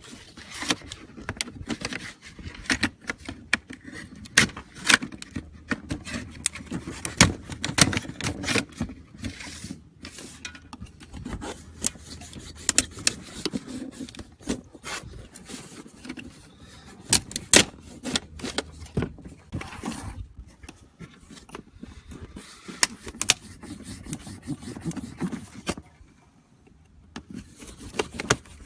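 Plastic welds cracking and snapping as a pry tool separates the backing plate from a stock 2015 Mustang GT hood vent, with scraping of the tool against the plastic. There are many irregular sharp cracks, and a brief lull near the end.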